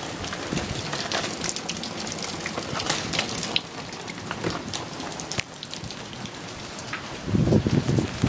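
Heavy downpour of rain pattering on surfaces, with individual drops striking close to the microphone. Near the end, wind buffets the microphone with low rumbling bursts.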